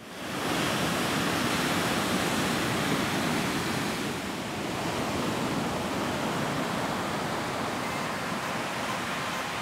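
Breaking ocean surf: a steady, even rushing noise that fades in quickly at the start.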